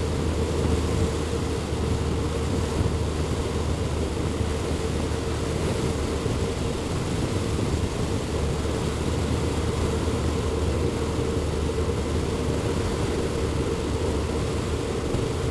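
Motorcycle cruising steadily along a road: the engine running at an even speed under wind and tyre noise, with a steady low hum.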